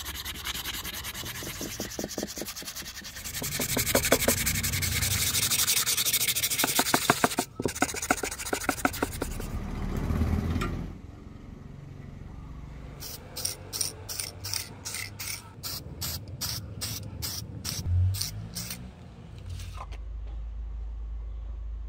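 Hand sanding of a wooden axe handle: rapid back-and-forth rubbing strokes for about ten seconds, then slower separate strokes, about two a second.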